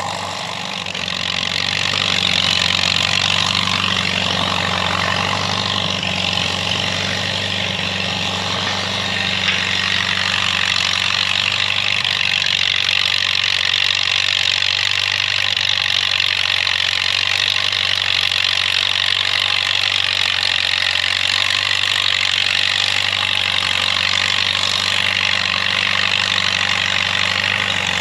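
Crawler tractor's engine running steadily while skidding logs with a log arch.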